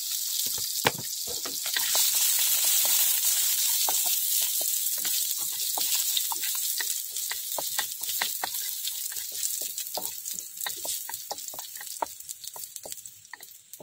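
Chopped garlic sizzling in a little hot oil in a steel wok, with a wooden spatula stirring it and clicking and scraping against the pan. The sizzle is loudest in the first few seconds and dies down near the end as the garlic turns fragrant.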